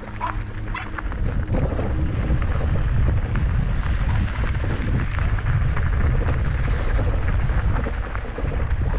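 A mountain bike being ridden on a rough track: wind buffets the microphone under a crunch of tyres and small rattling clicks. It gets louder about two seconds in.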